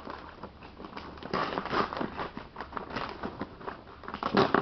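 Rustling and crackling from things being handled, many quick irregular clicks, with a louder burst of rustling near the end.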